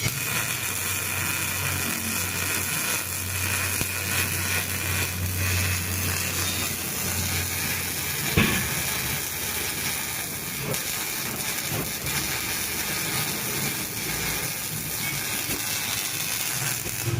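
CO2 (MIG) welding arc crackling and hissing steadily, with a low hum through the first half and a single knock about eight seconds in.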